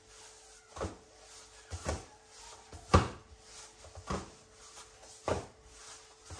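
Neapolitan pizza dough being slapped down onto a floured worktop as it is stretched and flipped, five slaps about a second apart, the third the loudest.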